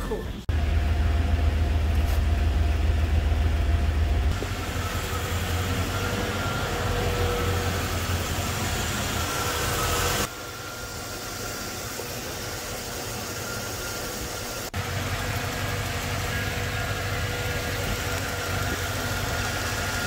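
Chevy 350 small-block V8 idling steadily, heard up close in the engine bay, with a faint steady high whine. It is running on a newly fitted mechanical fuel pump. The level jumps suddenly several times where short clips are cut together.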